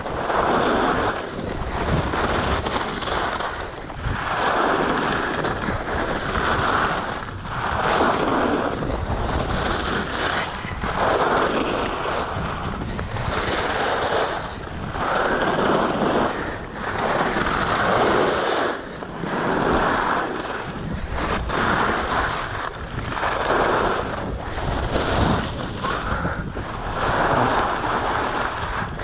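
Skis swishing and scraping across hard-packed snow in linked turns, one surge about every two seconds, over steady wind rushing on a chest-mounted action camera's microphone.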